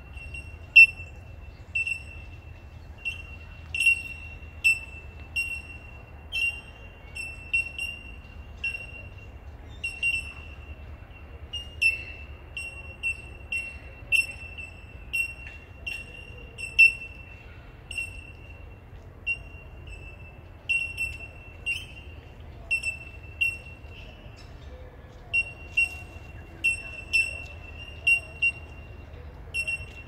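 Bell miners calling: a chorus of short, high, bell-like 'tink' notes from several birds, all at about the same pitch, repeated irregularly one to two times a second.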